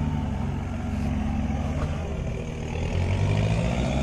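Off-road 4x4's engine running steadily, getting a little louder about three seconds in.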